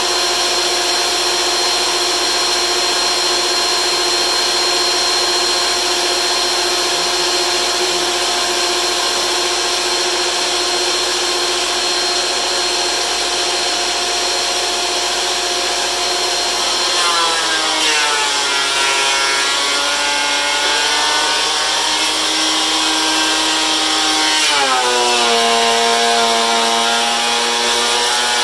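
DeWalt benchtop thickness planer running with a steady high motor whine, then a board feeds into the cutterhead: the pitch drops as the motor takes the load and a rough cutting noise rises. A second, deeper drop in pitch comes about three-quarters of the way through as the cut takes more load.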